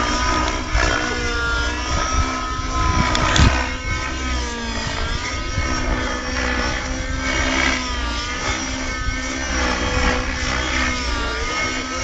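Radio-controlled helicopter flying 3D aerobatics, its motor and rotor whine swinging up and down in pitch as it manoeuvres. There is a brief knock about three seconds in.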